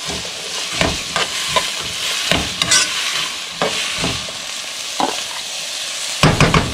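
Diced potato frying with onion, green pepper and tomato in hot oil in a pot: a steady sizzle, with a spoon scraping and knocking against the pot now and then as it is stirred.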